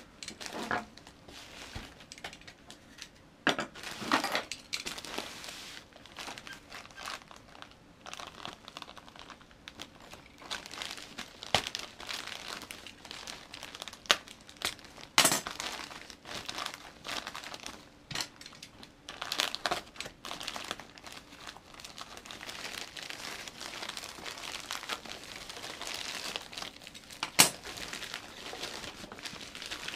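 Plastic mailing bag and its inner wrapping crinkling and rustling as they are handled and torn open by hand. The rustling is irregular, with a few sharp snaps, the loudest near the end.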